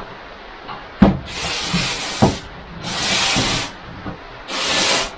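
Three separate bursts of hissing noise, each about a second long, with sharp knocks before the first two.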